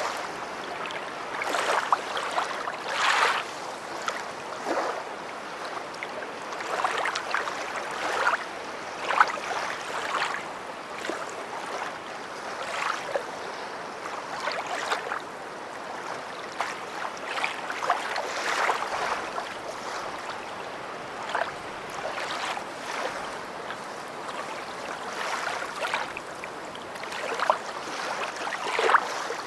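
Lake waves lapping and splashing, with short irregular splashes every second or two over a steady wash of water.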